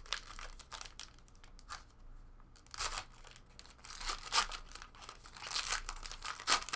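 Plastic packaging of a trading-card box and its packs being torn open and crinkled by hand, in irregular rustling bursts that are loudest in the second half.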